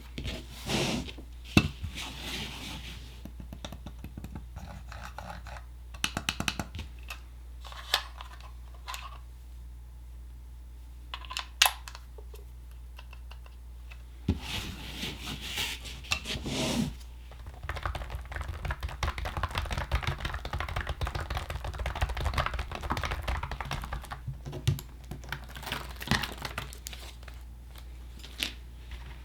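Typing on a wireless keyboard with round retro keycaps: a clatter of light key presses, densest and most continuous in the second half. A few louder handling rustles and knocks come earlier.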